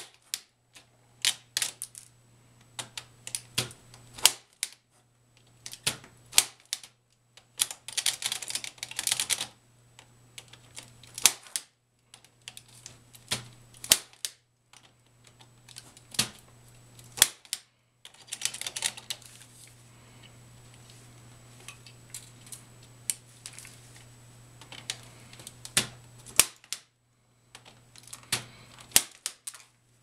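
Spring-loaded 110 punch-down tool with a cutting blade snapping repeatedly as it seats Cat 6 wires into the IDC contacts of a Leviton 110-style patch panel and trims off the excess. Dozens of sharp clicks at an uneven pace, often several in quick succession.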